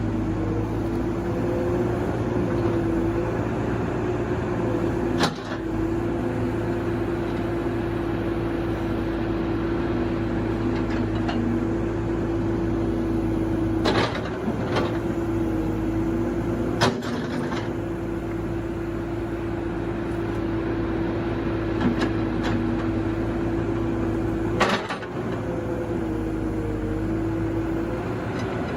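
CAT 313DCR hydraulic excavator running steadily with a constant humming tone. Sharp clunks sound about five times, and the tone dips briefly with some of them.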